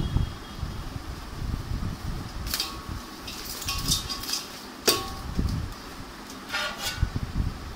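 Black plastic bag crinkling and rustling as hands work it open inside a steel pot, with one sharp click about five seconds in.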